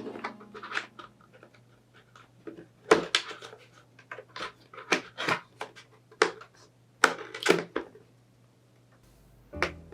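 A series of irregular, sharp clicks and knocks, like hard objects being handled. They come a second or so apart, with the loudest ones about three, five and seven seconds in.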